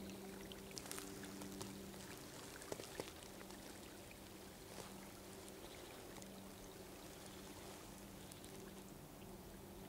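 Faint running water of a small, partly iced-over stream, flowing steadily. A few light clicks about one and three seconds in, and a faint low hum that comes and goes.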